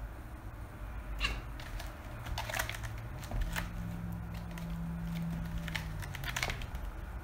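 A kitten's paws and claws scrabbling and scratching on a sisal rope scratching post and hardwood floor as it pounces on a swinging ribbon toy, giving scattered sharp scratches and taps. A steady low hum sits under the middle stretch.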